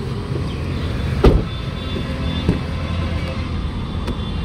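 Steady road-traffic rumble, with a single heavy thump about a second in like a car door being shut, and a lighter click a little over two seconds in.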